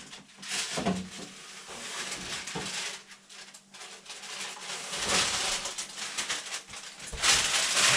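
A metal pizza peel clattering and scraping at the oven as a baked pizza is pulled off the preheated pizza stone, with the rustle of baking paper. The rustling is louder about five seconds in and again near the end.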